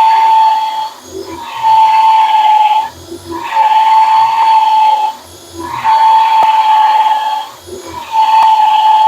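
Drill running a 1.5-inch Forstner bit into maple: a steady high motor whine that drops out and gives way to a lower rumble about every two seconds, four times, as the bit is worked into the wood.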